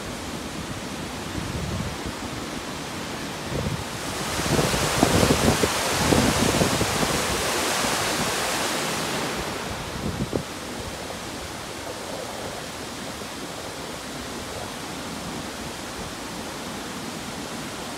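Rushing floodwater of Honokohau Stream in flash flood, a steady roaring hiss of fast brown water. It swells louder and brighter for several seconds around the middle, with a few low thumps, then settles back to the steady rush.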